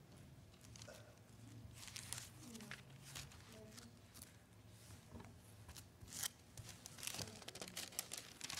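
Faint rustling and crinkling of thin Bible pages being leafed through by hand, a scatter of soft page flicks that come more often near the end.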